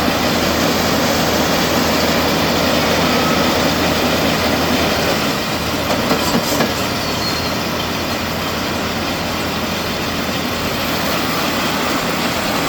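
John Deere 4250 six-cylinder diesel tractor running steadily while pulling a John Deere 450M round baler that is picking up and baling wheat straw, the baler's pickup and chains clattering along. A few brief knocks come about halfway through.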